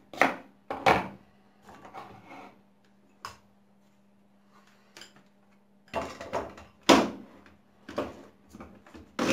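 Sharp plastic clicks and knocks as a hand blender's chopper attachment is put together, the lid set on the bowl and the motor unit pressed on top. Two knocks near the start, scattered clicks, and a busier cluster about six to seven seconds in.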